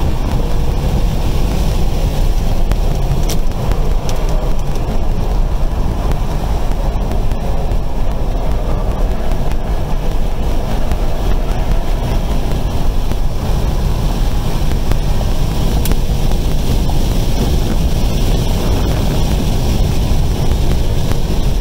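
Steady, loud rush of wind and road noise from a Tesla Model 3 Performance driven hard around a race track, with no engine note from its electric drive.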